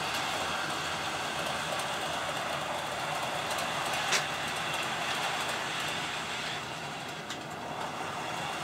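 HO scale model train running along the track, a steady hum of motor and wheels on rail, with one sharp click about four seconds in.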